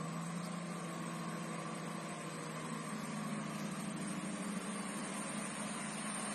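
Truck engine running steadily, a low, even hum.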